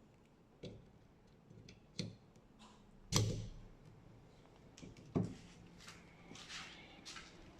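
Light plastic clicks and knocks from handling a VW Polo rear wiper blade and its arm. There are four sharp clicks, the loudest a little after three seconds in, then some faint rustling and scraping near the end.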